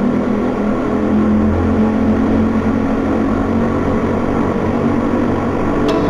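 KTM RC motorcycle engine running steadily while riding, over road and wind noise. Music with sharp percussive strokes comes in just before the end.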